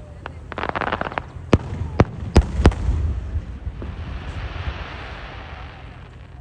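Fireworks going off: a quick cluster of crackles about half a second in, then four sharp bangs over the next two seconds, followed by a long crackling hiss that slowly fades.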